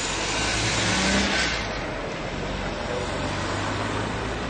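Classic open-top sports car driving past close by, its engine and tyre noise swelling to a peak about a second in and then fading away. A low, steady engine hum from other classic cars carries on underneath.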